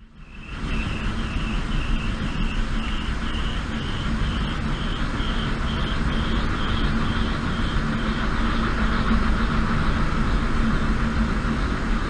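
Wind turbine spinning fast in storm wind: a steady drone under rushing wind noise, with a high whine that pulses about twice a second and fades out after about eight seconds.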